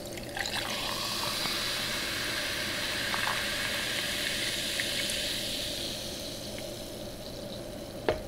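Sparkling water poured from a can over ice into a glass, hissing and fizzing as it fills. The pour eases off about six seconds in, leaving a fainter fizz, and there is a light knock near the end.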